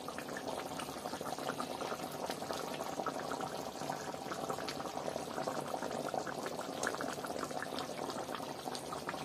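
Chicken curry gravy boiling in an open metal kadhai, a steady dense crackle of popping bubbles. The curry, with potatoes and hot water added, is at a full boil.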